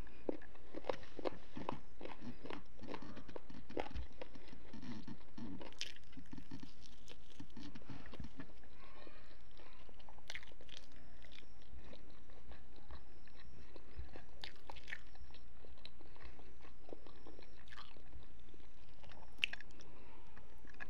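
A person chewing and biting food eaten by hand, close to the microphone. Dense chewing sounds for the first eight seconds or so, then only scattered smacks and clicks.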